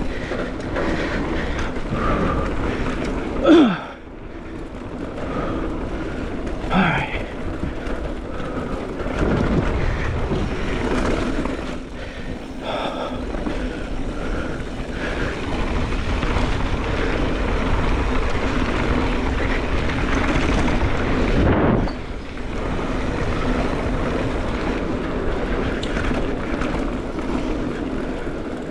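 Mountain bike descending a dirt downhill trail: steady rushing wind and rolling, rattling noise from the tyres and bike over the ground. There is a short, loud falling tone about three and a half seconds in.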